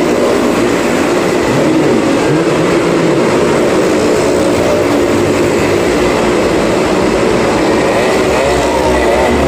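Several motorcycle engines running loud and without a break inside a wooden well-of-death drum, their pitch rising and falling as the riders circle the vertical plank wall.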